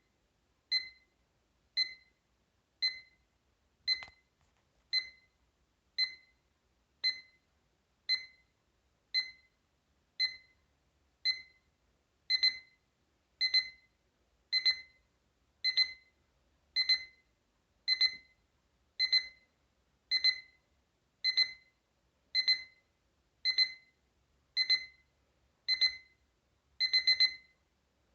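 Capello CA-43 alarm clock's alarm sounding: a high electronic beep repeating about once a second. It gets louder about halfway through, and near the end it switches to quick bursts of several beeps.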